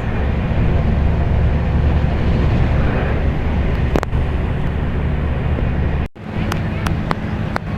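Bus engine running steadily with a low rumble while driving, with a few sharp clicks or rattles over it. The sound cuts out for an instant about six seconds in.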